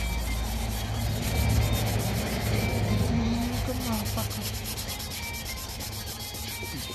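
Wet sanding a car's rear quarter panel by hand with 400-grit sandpaper on a sanding block: steady rubbing of wet abrasive over body filler and old paint.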